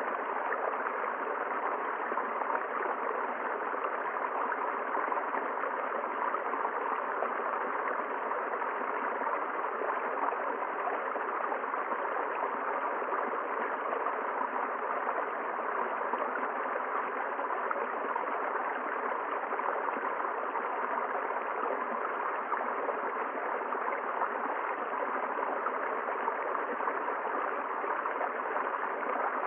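Forest river flowing steadily over rocks, a constant even rush of water.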